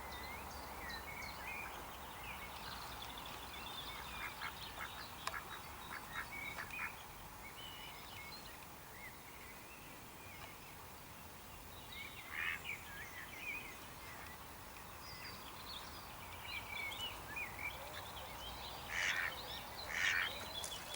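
Birds calling: a steady scatter of short chirps and whistles, with a few louder, coarser calls about twelve seconds in and again near the end.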